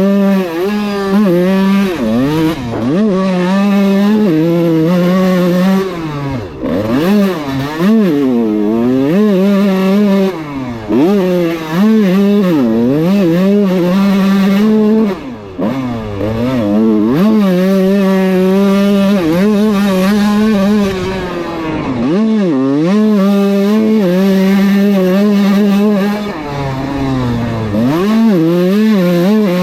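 Kawasaki KX125 single-cylinder two-stroke dirt bike engine being ridden hard, its pitch climbing under throttle and dropping sharply again and again as the rider shifts and backs off. There is a brief dip in level about halfway through.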